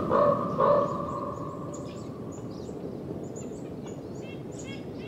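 Two metallic clangs about half a second apart near the start, each ringing on in one clear tone that fades away over a couple of seconds. Then small birds chirping, with a quick run of repeated calls near the end.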